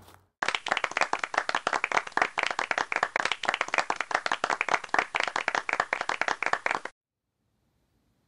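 Audience applause, a dense run of many claps that starts just under half a second in and cuts off suddenly about seven seconds in.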